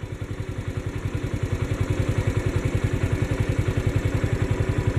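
Yamaha motorcycle engine idling with an even, rapid putter of about ten beats a second, getting a little louder over the first couple of seconds.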